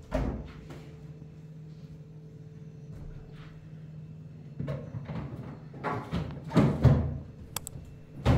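A sharp knock at the start, a low steady hum, then a run of thumps and knocks in the second half, the loudest near the end: objects being set down or a door or drawer being shut.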